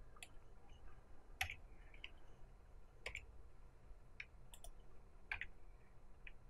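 Faint, irregular clicks of a computer mouse and keyboard keys, about nine in six seconds, as the 3D view is moved and switched with the mouse and numpad.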